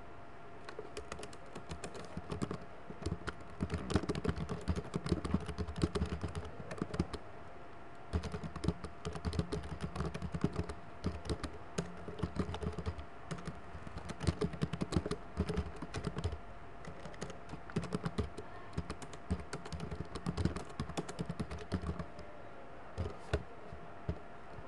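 Typing on a computer keyboard in quick runs of keystrokes broken by short pauses, the longest near the end.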